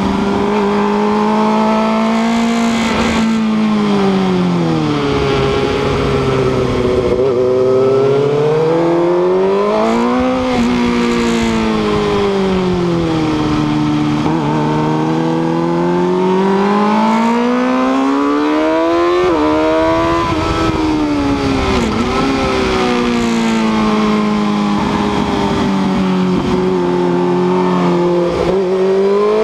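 Sport motorcycle engine heard from on board, held in second gear, its revs rising and falling several times as the bike accelerates and slows through the corners.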